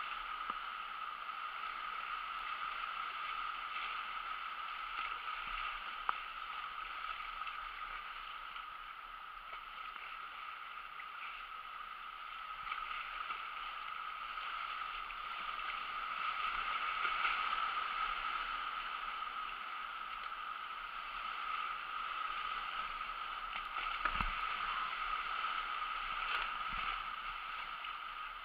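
River rapids rushing and churning steadily around a kayak, swelling a little in the middle, with a few brief knocks.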